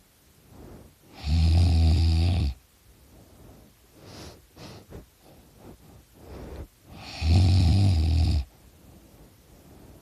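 A teenager snoring with his mouth open: two loud snores about six seconds apart, each lasting just over a second, with a run of short, quieter breaths between them.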